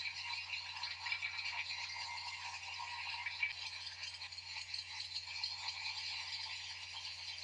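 Dip tube assembly machine running: a dense, continuous rattle of aerosol valves clattering along its feed track, over a steady low machine hum.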